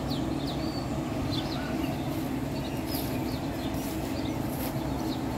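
Steady low hum of machinery running at a grain-loading site, with many short, high bird chirps scattered over it.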